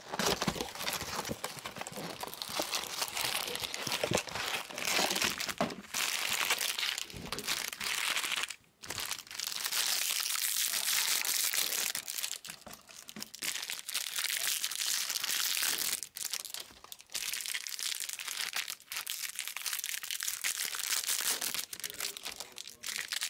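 Foil trading-card pack wrappers of a 2020 Bowman Draft Jumbo box being torn open and crinkled, almost continuously with short pauses, as the packs are opened one after another.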